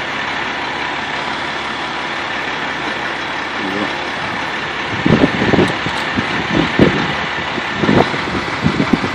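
Utility bucket truck's engine idling steadily. From about halfway, irregular low thumps and rumbles join in.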